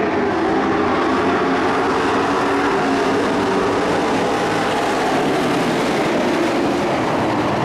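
Engines of a pack of dirt-track racing trucks running together as they circle the oval, a steady, continuous engine sound.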